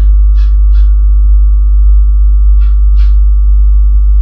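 A loud, steady electrical hum with several steady tones above it, and four short scrapes of a wooden spatula stirring sliced onions and green chillies in a nonstick kadai, in two quick pairs about two seconds apart.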